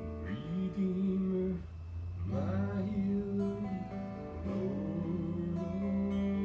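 Worship song played on strummed acoustic guitar, with a voice singing long held notes that slide up into pitch.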